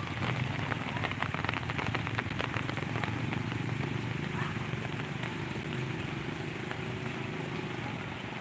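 Rain pattering close to the microphone over a steady wash of noise. The patter is densest in the first few seconds and thins out after.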